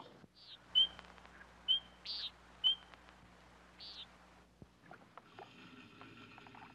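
Bird chirps, about six short, sharp calls in the first four seconds, over a faint steady low hum.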